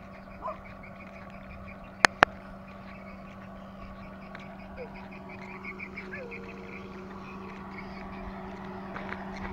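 Frogs calling from the rice paddies, scattered short calls over a steady low hum, with two sharp clicks in quick succession about two seconds in.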